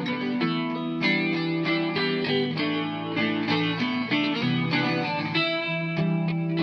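Background music: a guitar piece with effects, playing a run of plucked notes and chords.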